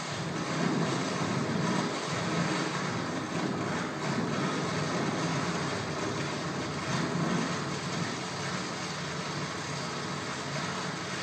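A steady, noisy rumbling drone that swells and eases a little every couple of seconds, from the soundtrack of a multi-screen video installation played into the gallery room.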